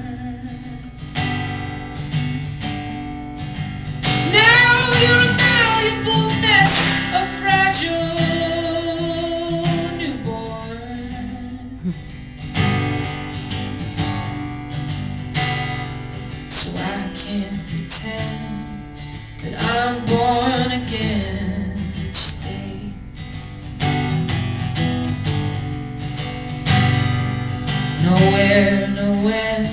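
Acoustic guitar strummed and picked through an instrumental passage of a song, with a man's voice singing long, bending notes in a few stretches, loudest about four to seven seconds in.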